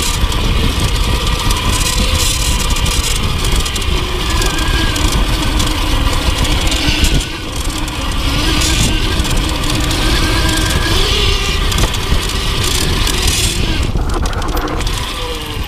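Wind rushing over the microphone, mixed with tyre noise and the rattle of a mountain bike riding fast down a grassy track and a forest dirt trail. The level drops briefly about seven seconds in.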